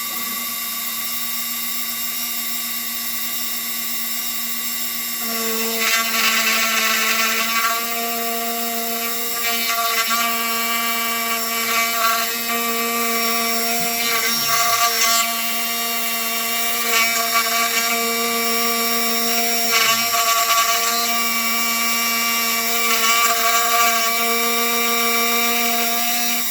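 Dremel rotary tool spinning as the spindle of a homemade CNC mini mill, a steady high whine. From about five seconds in, louder grinding bursts of a second or two come every few seconds as the bit makes repeated cuts in wood.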